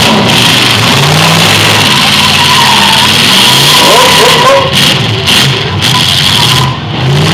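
Full-size demolition derby cars' engines revving hard, very loud, their pitch rising and falling again and again.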